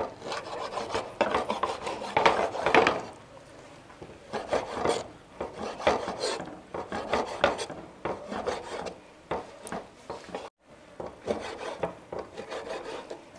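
Knife cutting through a raw trevally fillet on a wooden cutting board: repeated rasping, sawing strokes of the blade through the flesh, with the blade scraping and tapping against the board.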